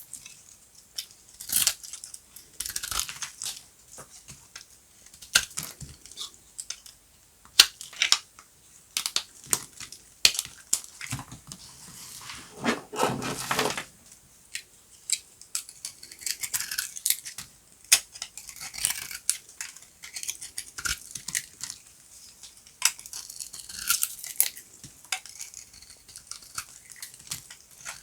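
Dry, brittle soap being cut with a knife: a run of crisp cracks and crunches at irregular intervals, with one longer, fuller crunch about halfway through.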